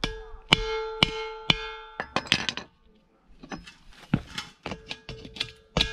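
A ball-pein hammer tapping the domed end of a rusty steel gas-cylinder air tank, each strike ringing with a clear bell-like tone. There are about four firm, evenly spaced blows, a brief pause, then a run of quicker, lighter taps. The tapping checks whether a crack-like line in the tank end is a crack in the steel; it turns out to be a thin outer skin delaminating.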